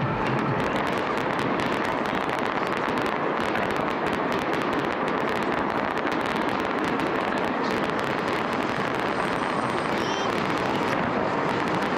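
Aerial fireworks display: a continuous dense crackling and popping of many shells bursting at once, steady in loudness with no single bang standing out.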